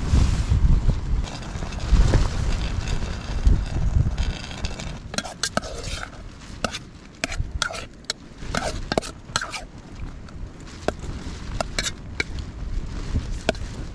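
A metal spoon clinking and scraping against a metal camping pot of sausages and beans, with many sharp clicks and a few short ringing scrapes from about five seconds in. Before that there is a low rumble.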